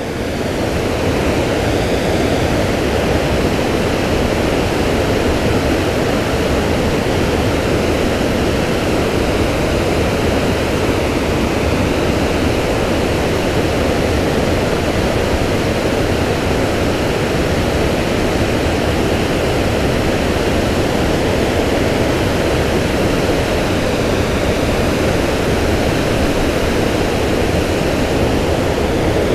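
River water pouring over a low spillway dam: a steady, unbroken rushing of falling water.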